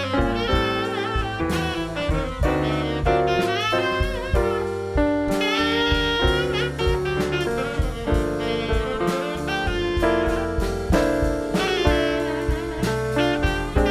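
Live jazz band playing an instrumental break: piano and upright bass under a gliding lead melody line, with drums keeping time.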